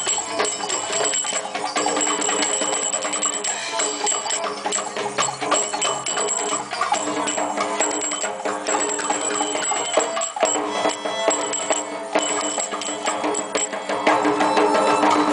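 Live belly-dance band music: a violin playing over hand drums and jingling percussion, with many quick strokes. It gets louder about a second before the end.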